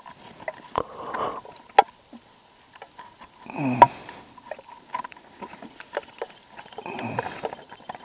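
Knife cutting the top off an aluminum beer can: scattered sharp clicks and crinkles of the thin metal, with three short rasping bursts about three seconds apart.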